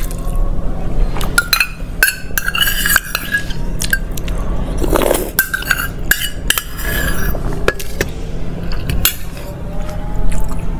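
Stainless steel spoon clinking and scraping against a small steel bowl and plate as food is scooped up: repeated sharp clinks, several with a brief metallic ring.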